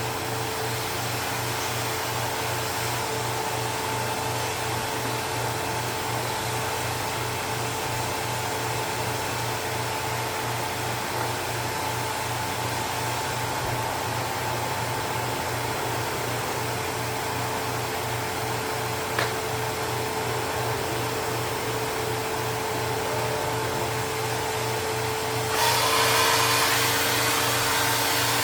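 A Dust Care Evolution Prestige 6502Z upright vacuum running steadily with a constant motor hum and whine. Near the end it gets louder and hissier.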